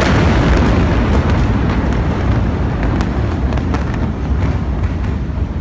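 Rumble of a massive explosion, loud and dense, slowly dying away after the blast, with scattered sharp crackles and pops through it.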